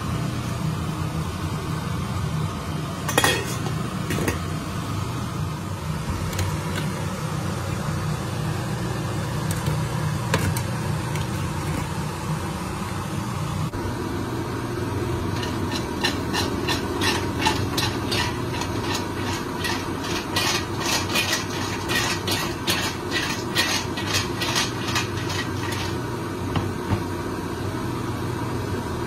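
Steel pot of mussels shaken on the hob with its lid held down: fast rattling and clinking of the shells and lid for about ten seconds, starting around the middle, over a steady low hum. A single metal clink comes about three seconds in.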